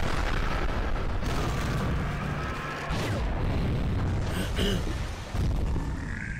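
Explosion sound effects from an animated battle: a blast right at the start, then a continuous heavy low rumble, with fresh booms about three and five seconds in.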